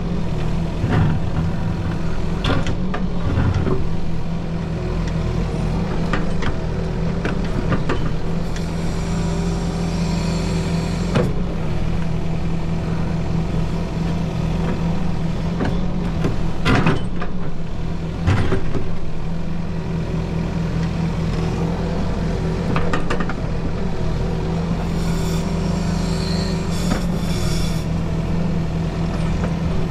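Cat 308E mini excavator running steadily under load as it digs, its bucket knocking against stones in the soil every few seconds. Twice there is a stretch of high hiss.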